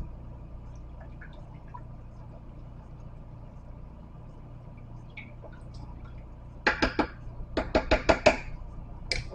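Wooden spoon stirring beans and water in a slow cooker's crock, soft and liquid, then a quick series of sharp knocks with short ringing as the spoon is tapped against the crock's rim, with one louder knock at the very end.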